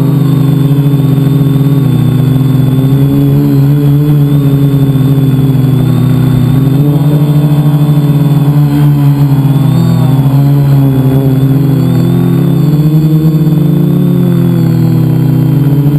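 Multicopter's electric motors and propellers, heard close up from a camera mounted on the craft: a loud, steady buzzing drone whose pitch wavers up and down as the throttle changes.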